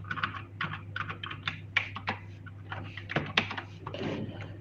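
Typing on a computer keyboard: irregular runs of quick key clicks, over a steady low hum.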